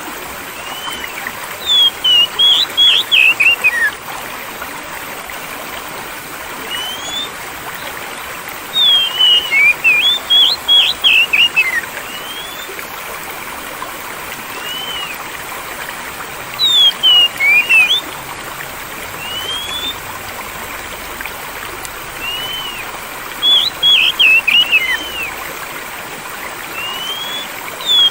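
Steadily flowing water with a songbird singing over it. The song comes in loud bursts of quick, rising and falling whistled notes, each lasting about two seconds and coming roughly every seven seconds, with single soft whistles in between.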